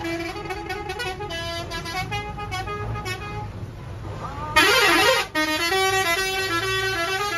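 Bus-stand traffic: bus engines running with vehicle horns sounding, and a run of pitched notes stepping up and down like a tune. About four and a half seconds in comes one loud horn blast, under a second long and wavering in pitch.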